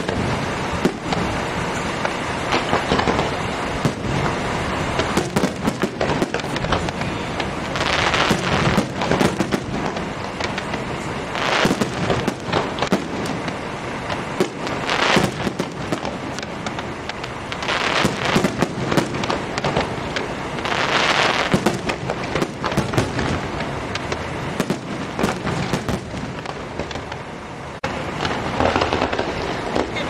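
Aerial fireworks display: a continuous run of shell bursts and crackles, with louder crackling surges every few seconds.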